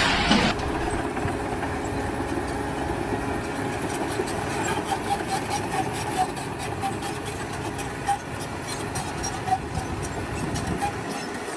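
Machinery running steadily, with a faint held hum and a light, rapid clicking rattle that sets in a few seconds in.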